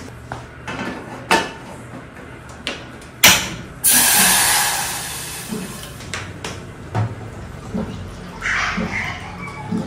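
Kitchen handling knocks, the sharpest about three seconds in, then water poured from a glass jug into an empty saucepan: a loud splashing pour that fades over about two seconds. Near the end, water runs from a water dispenser's tap into a jug for about a second.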